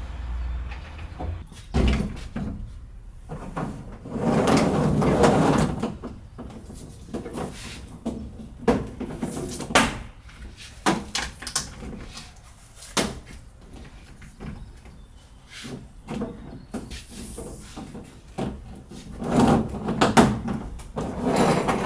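Scattered knocks, clicks and clatter like doors or cupboards opening and closing and objects being handled, with two longer stretches of rustling or scraping, one about four seconds in and one near the end.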